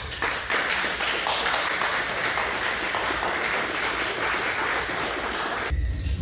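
A small group of people clapping and applauding. The applause cuts off suddenly near the end, where a low rumble comes in.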